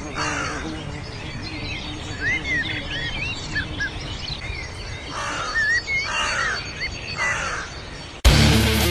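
Birds chirping in short, quick, rising-and-falling notes, with a few harsh, rasping calls now and then. Shortly before the end, loud electric guitar music cuts in abruptly and drowns them out.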